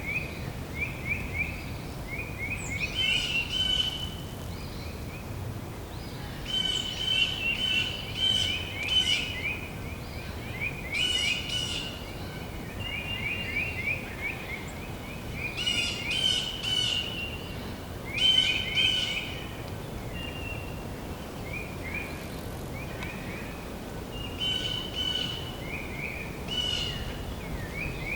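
Songbirds singing in a spring forest: short trilled phrases and chirps come every few seconds, over a steady low background hiss.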